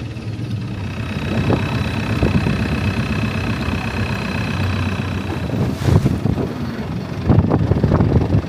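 Long-tail boat engine running steadily under way, a low rumble with a thin high whine for a few seconds. Wind buffets the microphone toward the end.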